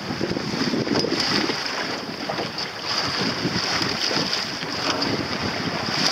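Wind buffeting the microphone over water rushing along the hull of a small sailing dinghy as it sails through choppy waves; a steady, gusty noise with no speech.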